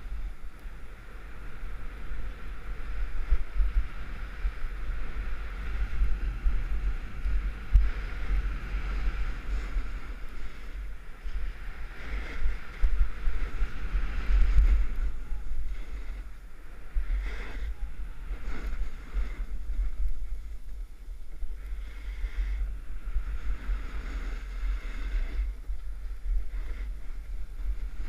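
Wind buffeting a moving camera's microphone in a steady low rumble, over the hiss and scrape of skis running and carving on groomed snow, which rises and falls through the turns.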